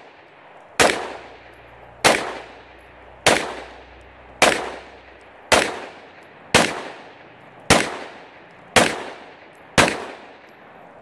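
Extar EP9 9mm pistol firing nine single shots at an even pace of about one a second, each a sharp crack with a short echo trailing off. The gun fires every round without a stoppage in a function test after a tune-up.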